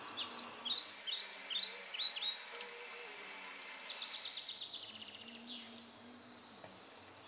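A songbird singing: a run of quick downward-sweeping chirps, then a fast trill about four seconds in, and one more falling note.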